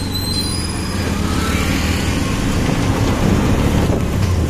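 Motorcycle engine of a motorcycle taxi cab running steadily under way, heard from inside the cab, with road and wind noise; it grows slightly louder over the few seconds.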